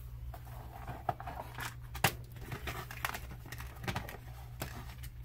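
Hands rummaging through a clear plastic small-parts box: scattered light plastic clicks and rustling, the sharpest click about two seconds in, over a steady low hum.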